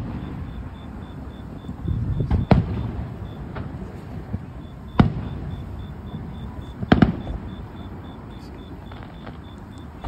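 Aerial fireworks shells bursting in a series of sharp bangs, the loudest about 2.5, 5 and 7 seconds in. Each bang is followed by a low rumbling echo.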